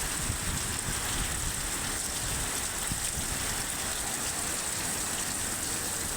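Heavy rain pouring down steadily, a constant hiss of rain on surfaces with low gusty rumbles underneath.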